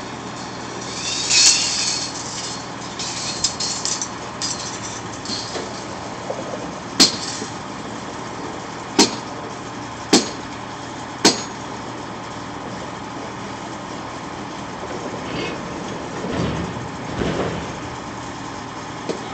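An axe chopping at the bands that hold a bundle of new railroad ties together: four sharp strikes a second or two apart, the band proving tough to chop. Underneath runs the steady sound of the work machinery's engine, and a short loud rush of noise comes about a second and a half in.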